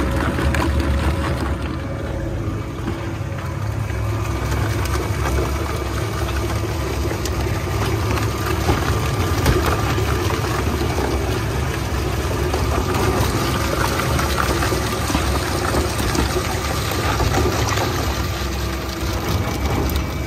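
VS-2260 plastic shredder running under load, chewing lumps of plastic into flakes: a steady low machine drone with frequent small cracks and clicks of plastic being cut.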